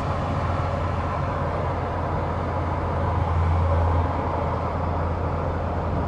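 Turbocharged 1.9-litre four-cylinder engine of a Tofaş Doğan running at a steady cruise, with tyre and road noise: a low, even drone that swells slightly about halfway through.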